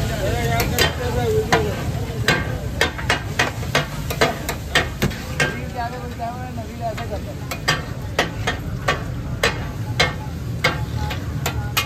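Steel ladle and spatula clacking and scraping on a large flat metal tawa griddle as fish katakat is stirred and chopped. The sharp metal clacks come irregularly, a couple a second, over a frying sizzle.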